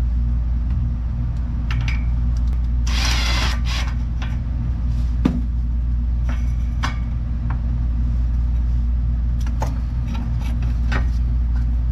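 Hand tools on the 8 mm bolt of a Fiat 124 Spider's rear brake pressure regulator: scattered metal clicks and scrapes, with a longer rasping scrape about three seconds in, over a steady low hum.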